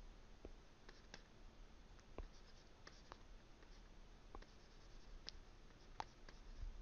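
Near silence with faint, scattered ticks and light scratches of a stylus moving on a drawing tablet as lines are sketched.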